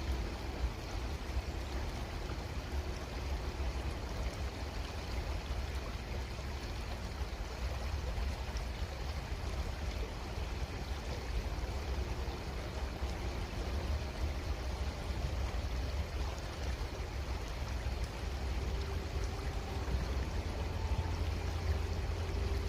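Creek water running and trickling steadily, with a steady low rumble underneath.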